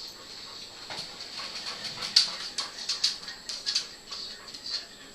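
Fledgling songbirds giving rapid, repeated high-pitched begging chirps, calling for food from the parent bird.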